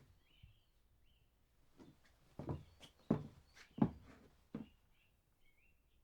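Footsteps of a man walking at a normal pace: after a pause, five steps begin near two seconds in, about one every 0.7 s. Birds chirp faintly in the background.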